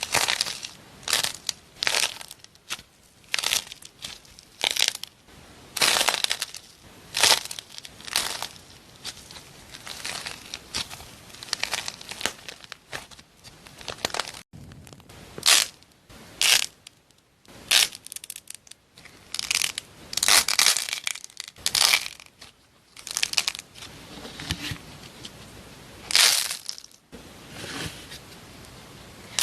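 Crunchy material being squeezed and crushed, a string of short irregular crackling crunches about one or two a second, thickest a little past two-thirds of the way through.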